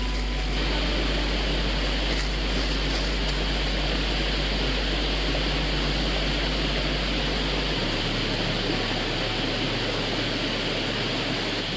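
Small stream rushing steadily, an even hiss of running water, with a low rumble underneath that drops about eight seconds in.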